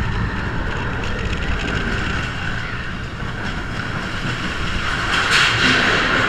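Roller coaster train running along its steel track: a steady low rumble and clatter of the wheels, rising to a louder hissing rush about five seconds in.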